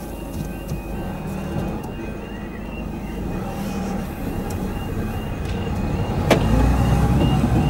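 Level crossing audible warning alarm sounding its short repeating electronic tones, about two to three a second, as the barriers lower. Under it a car engine runs with a low rumble that grows louder near the end, and there is a single sharp knock about six seconds in.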